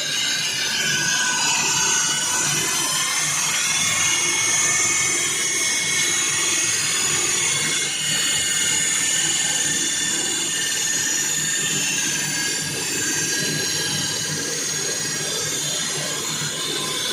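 Floor saw cutting into a concrete floor: a loud, steady grinding with a high, slightly wavering whine over it.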